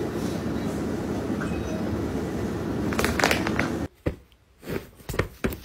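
A steady low rumble of background noise, with a short flurry of clicks and knocks about three seconds in; it then stops abruptly, leaving quiet broken by a few light taps.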